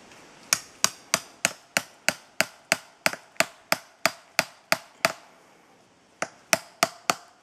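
A hammer striking a chisel to cut chaga fungus off a birch trunk: a run of about fifteen sharp blows, about three a second, each with a short metallic ring, then a pause and four more blows near the end.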